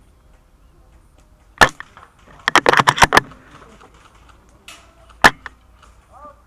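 Tokyo Marui L96 AWS spring-powered airsoft sniper rifle firing a sharp shot, then its bolt worked in a quick run of clicks and rattles, and a second shot about four seconds after the first.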